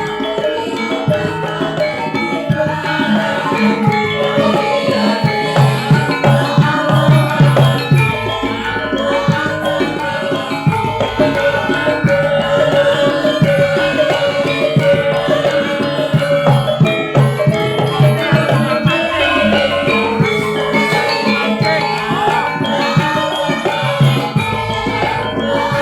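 Javanese gamelan music: metallophones and gongs ringing out steady held notes over fast hand-drum rhythms.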